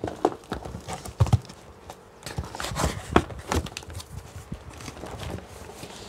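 Cardboard parcel in a plastic mailer being handled and opened: irregular knocks, taps and scrapes of the box and its wrapping.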